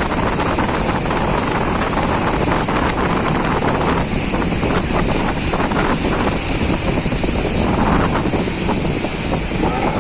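Strong wind buffeting the microphone over a loud, steady rush of surf and high waves.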